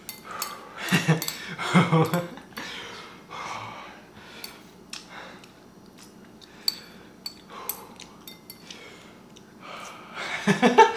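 Chopsticks clicking against a ceramic bowl as spicy ramen is eaten, with short bursts of laughter and breathing.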